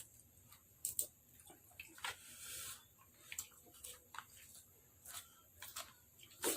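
A person eating spicy seafood papaya salad: wet chewing and small mouth and utensil clicks, with a short hiss about two seconds in.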